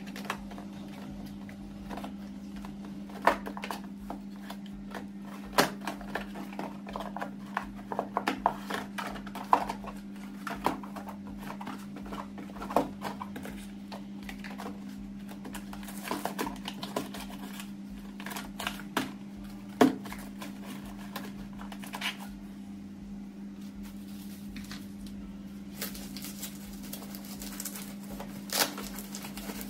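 Plastic toiletry bottles, spray cans and cardboard boxes being moved and set down in a bathroom drawer, giving irregular light clicks and knocks. A steady low hum runs underneath.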